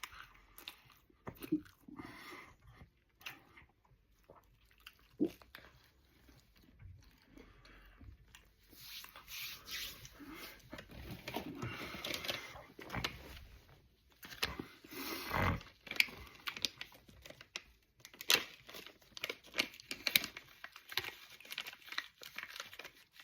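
Close-up breakfast handling sounds: irregular crinkling, rustling and tearing, as of food wrappers, with scattered clicks and taps and some crunchy chewing. The rustling is heaviest about halfway through.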